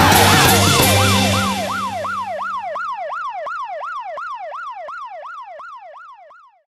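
Police car siren in rapid yelp mode, its pitch sweeping up and down about three times a second. A low vehicle rumble under it dies away about two seconds in, and the siren fades out and stops near the end.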